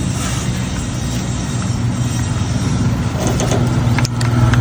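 Chinese 328 two-stroke brush cutter engine running steadily, growing louder in the last second or so.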